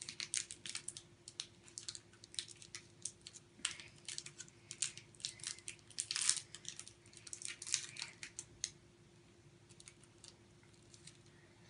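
Plastic wrapper of a Toxic Waste sour candy crinkling as it is picked open by hand: a rapid, uneven run of crackles that stops about three seconds before the end.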